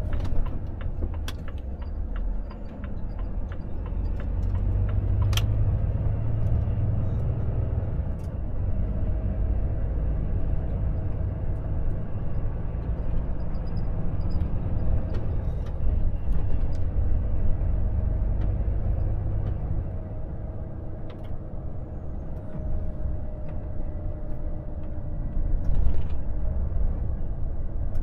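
Volvo FH truck's diesel engine and tyre rumble heard from inside the cab while driving slowly. The sound is a steady low rumble with a few sharp clicks.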